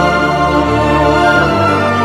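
Instrumental background music with long held notes over a bass line that changes note about one and a half seconds in.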